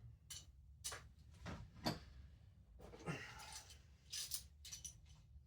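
Scattered metallic clicks and scrapes from a small wrench working on a spark plug in a 7M-GTE cylinder head, with one sharp click about two seconds in and a quick cluster of clicks near four seconds.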